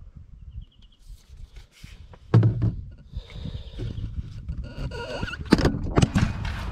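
Paper and cardboard handling: a rolled scratch-map poster being drawn out of a cardboard poster tube and unrolled, rustling, with a loud thump about two seconds in and sharp knocks near the end as the camera is picked up and moved.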